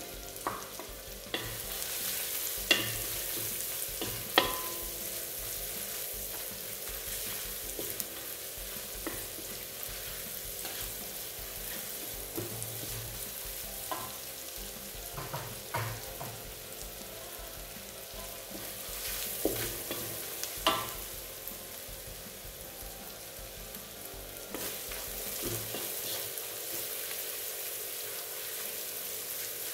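Spice paste with chili powder sizzling in hot oil in a wok as it is stir-fried. A spatula scrapes and knocks against the pan now and then.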